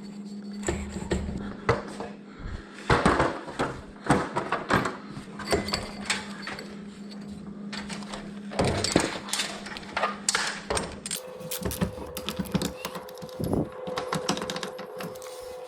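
Irregular metal clicks and knocks from hand work on garage door spring hardware, some of them sharp clanks.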